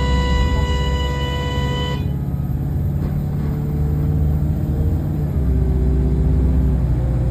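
Bus running with a low rumble and an awful, steady, horn-like tone over it that cuts off suddenly about two seconds in. Lower hums that change pitch go on under the rumble.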